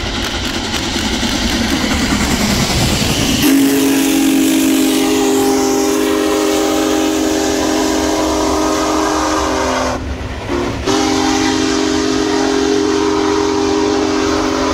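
Union Pacific Big Boy 4014 steam locomotive and its train rolling past at speed. About three and a half seconds in, its steam whistle starts a long, steady blast of several tones together, breaks off briefly near ten seconds, then sounds again over the rolling noise of the passing cars.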